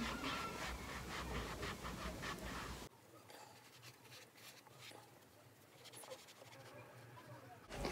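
Scratchy rubbing of an acetone-soaked cloth worked by a gloved hand over a slide sandal, stripping off its white finish. It drops suddenly to a much fainter scrubbing about three seconds in.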